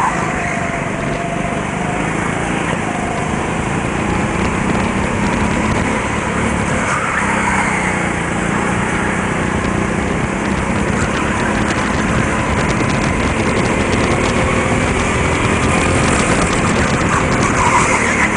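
Go-kart's small engine running steadily under throttle through the laps, heard from the driver's seat, with tyre and rushing noise over it.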